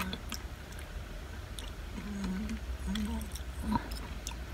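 Mouth sounds of someone eating noodles: chewing and slurping with small wet clicks. Two short hummed "mm" sounds come about two and three seconds in.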